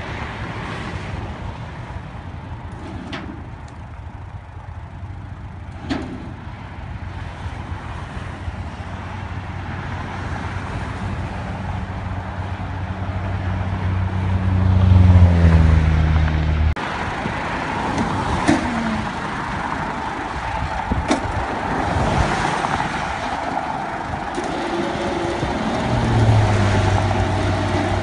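A vehicle engine running and revving up under load while a pickup is loaded onto a flatbed tow truck, rising in pitch to its loudest about 15 seconds in, then cutting off abruptly; an engine runs steadily again near the end. A few sharp knocks are heard along the way.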